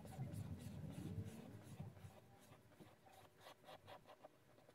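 Faint scratching of a fine-tip glue bottle's nozzle drawn across paper as PVA glue is laid down in lines, a little louder in the first couple of seconds.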